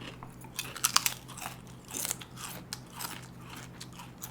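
Crunching and chewing of Bingo masala potato chips: many short, irregular crisp crackles.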